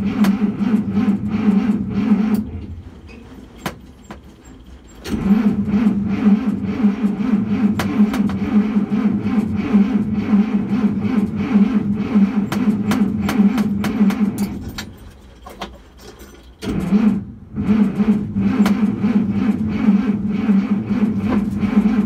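Starter motor cranking the old Dodge D300 truck's engine in three stretches with short pauses between, the engine turning over but not catching.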